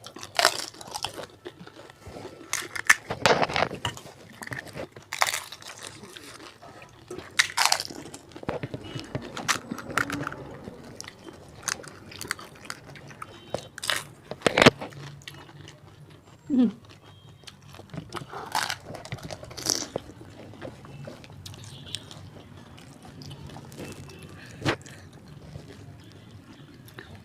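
Crisp fuchka (pani puri) shells being bitten and chewed: irregular loud crunches, one after another, between quieter chewing.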